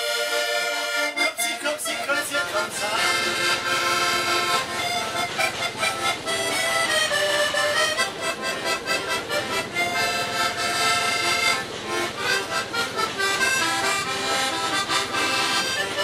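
Fratelli Crosio chromatic button accordion playing a tune: a melody over a steady rhythmic accompaniment.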